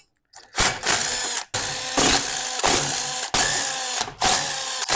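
Cordless DeWalt drill running in four short runs separated by brief pauses, starting about half a second in, as it backs screws out of an engine housing.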